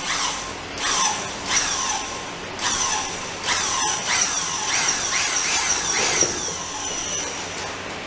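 Keyang D-23 electric paddle mortar mixer running in a bucket of ready-mixed mortar, a steady whine with repeated downward sweeps in pitch about once a second.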